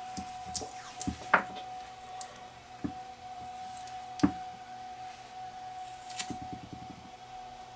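Hands handling a roll of electrical tape and two AA nickel-metal-hydride cells on a wooden bench: scattered light knocks and taps, and a brief crackling rasp of tape being pulled and wrapped about six seconds in. A faint steady whine sits underneath.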